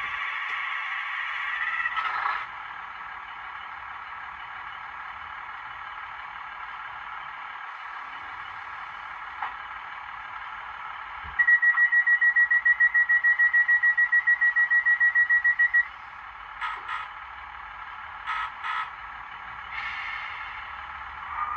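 Sound from the tiny built-in speaker of an N gauge locomotive's DCC sound decoder: a thin, bass-less running sound throughout. About midway a loud high ringing tone pulses about six times a second for about four seconds, followed by two pairs of short blasts.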